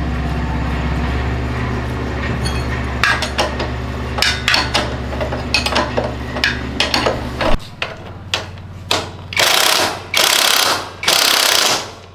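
Workshop tool sounds: a machine runs steadily under sharp clicks and knocks, then cuts off about halfway through. After it stops come several short hissing blasts.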